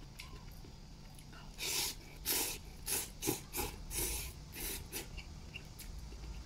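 A man slurping youpo mian (oil-splashed wheat noodles) off chopsticks: a run of about eight short sucking slurps, starting about a second and a half in and ending near five seconds.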